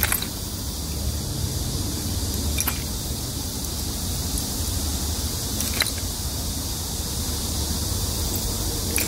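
Steady outdoor background noise, a low rumble with a high hiss, broken by a few faint clicks about three seconds apart.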